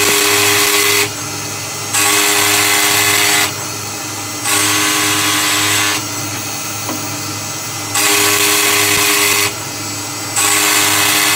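CNC lathe's live-tool end mill milling flats on a round bar. Five passes of loud cutting noise, each about one and a half seconds long with a steady whine, are broken by short quieter gaps over a constant machine hum.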